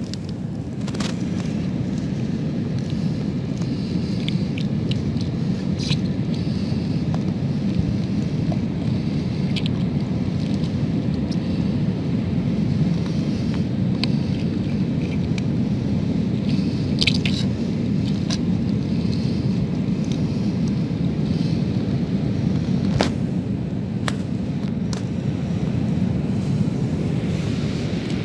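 Steady low rumble of wind buffeting the microphone, with scattered sharp clicks as hands work at the rock.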